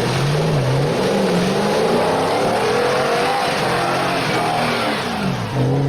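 Car engine sound running and revving, its pitch drifting slowly up and down over a steady hiss.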